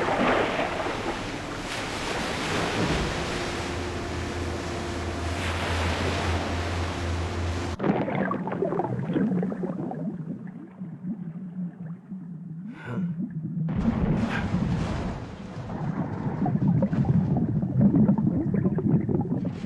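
Stormy sea sound effects: waves and surf rushing with a steady low hum underneath. About eight seconds in, the sound suddenly turns muffled and low, with a short higher hiss partway through, before the full wash of surf returns near the end.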